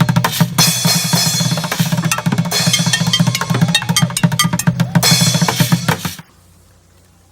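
Fast, dense drumming that stops abruptly about six seconds in, leaving only a faint low hum.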